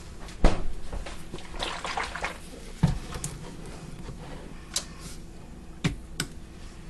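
Heavy cream being handled and poured from its carton into a mixing bowl: a soft pouring sound among a few sharp knocks and clicks, the loudest about half a second in.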